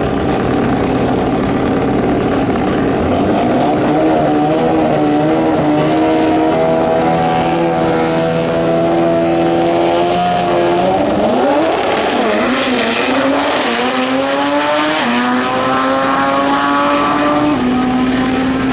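Drag race car engine running loudly at a steady pitch, then revving. About eleven seconds in, the pitch dips and then climbs steadily, stepping up twice near the end.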